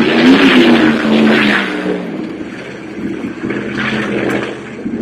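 V8 engine rumbling, revving in short wavering pulls for about two seconds, then easing off to a quieter, lower note that picks up slightly again near the end.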